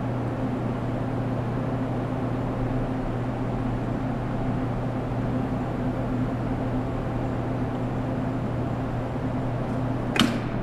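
Steady electrical hum and machine noise of industrial equipment, with one sharp click near the end.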